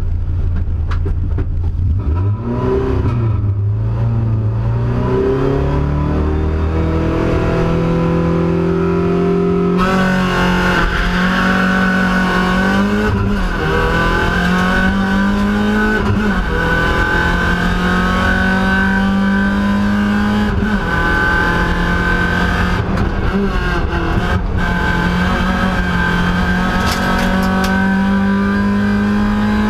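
VW Lupo race car's engine heard from inside the cabin: revved in short rises at the start line, then about ten seconds in it launches and pulls hard, revs climbing steadily and dropping back at each upshift.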